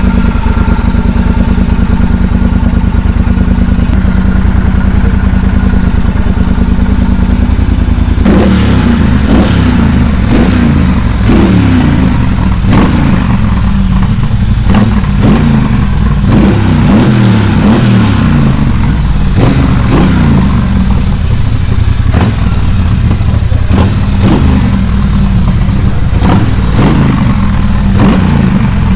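2017 Triumph Bonneville Bobber's 1200 cc parallel-twin engine idling steadily, then, from about eight seconds in, revved again and again in short throttle blips that rise and fall.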